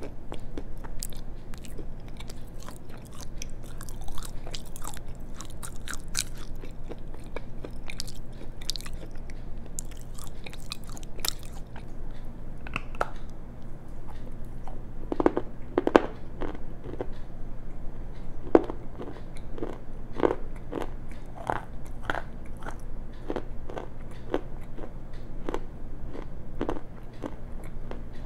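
Close-miked biting and chewing of a piece of black shale that was soaked and then sun-dried to an easy-to-bite but snappy texture. Sharp, crisp crackles come first; about halfway in they give way to duller, louder crunches about twice a second as the shale is chewed.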